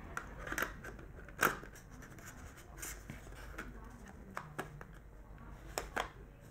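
Lens hood being fitted and twisted onto a camera zoom lens: light scraping and rubbing with several small clicks as the hood and camera are handled.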